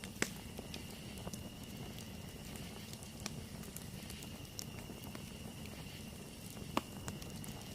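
Wood campfire burning: scattered crackles and sharp pops, the two loudest about a quarter second in and near the end, over a steady low rumble and a faint steady high tone.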